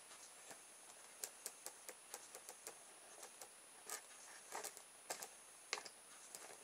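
Faint, irregular small clicks and ticks as fingers handle the homemade motor and bend its thin contact wire against the bicycle-spoke shaft.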